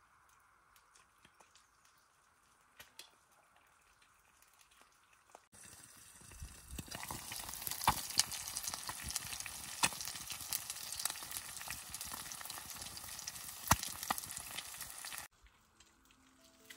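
Food frying in a pan: a loud sizzle full of sharp crackles that cuts in suddenly about five seconds in and cuts off abruptly near the end. Before it there is only a faint hiss with a few soft ticks.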